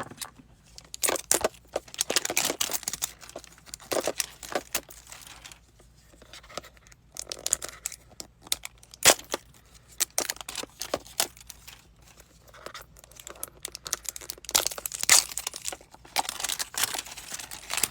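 Packaging being cut and torn open with scissors: irregular crinkling, tearing and snipping.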